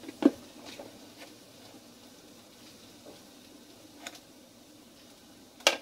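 Light ticks and a faint hiss as sugar is spooned from a container and sprinkled over chilies and garlic in a wooden mortar, with a sharper tap just before the end.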